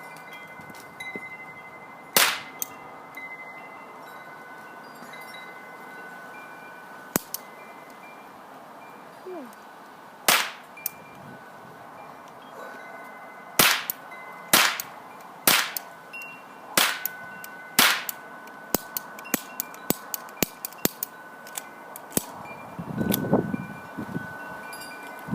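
A pistol being fired: single sharp shots every second or few seconds, about eight loud ones, then a quicker run of fainter cracks and clicks near the end.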